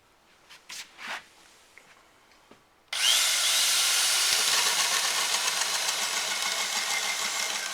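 Power drill boring into wood with a sharp auger bit, the bit's lead screw pulling it through the timber without pushing. It starts suddenly about three seconds in, after a few light knocks, and then runs steadily.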